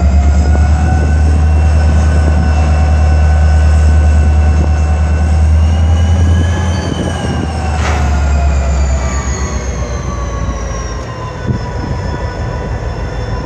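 A Norfolk Southern diesel locomotive rumbles deeply as it rolls past, the rumble falling away about six and a half seconds in as covered hopper cars follow. A steady high-pitched whine that rises slightly and then falls runs over the train, and a single sharp clank comes about eight seconds in.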